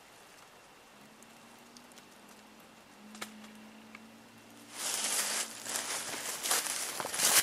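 Dry brush and twigs rustling and crackling close to the microphone, starting suddenly about two-thirds of the way in after a quiet stretch with a faint low hum.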